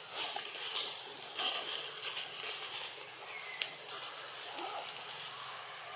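Outdoor ambience: short rustles and clicks, the sharpest about three and a half seconds in, with faint brief high chirps every second or two.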